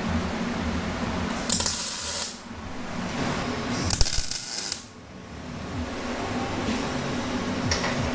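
Wire-feed (MIG) welder laying short welds: two crackling, hissing bursts of under a second each, about two seconds apart, and a brief third near the end, over a steady low hum.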